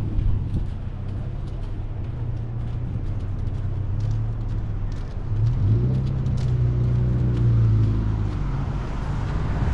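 A motor vehicle's engine running with a steady low hum, probably heard from inside the vehicle. A little past halfway the hum rises in pitch and gets louder, then eases near the end.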